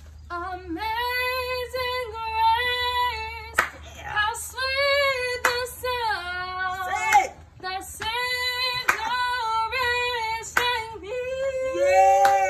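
A young woman singing solo and unaccompanied, holding long high notes and sliding between them. Sharp clicks come about every one and a half to two seconds.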